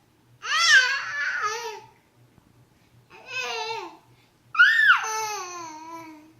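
A 7.5-month-old baby babbling: three drawn-out, high-pitched vocal calls, the last starting with a sharp upward-then-downward swoop in pitch and trailing off slowly.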